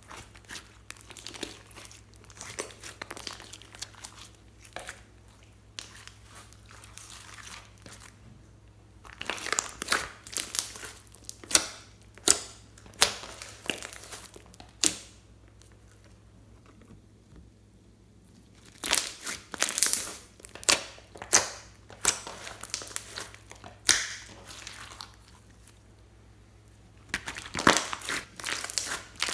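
Hands squeezing and kneading slime, making crackling and sharp popping sounds that come in clusters, with a pause of a few seconds midway.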